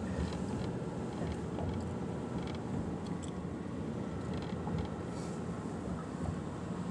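Steady road and engine noise of a car driving, heard from inside the cabin, with a few faint light ticks.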